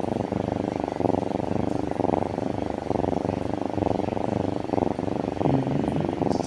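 Kitten purring steadily up close, a continuous fast pulsing rumble, which the owners take as a sign that the kitten is very happy.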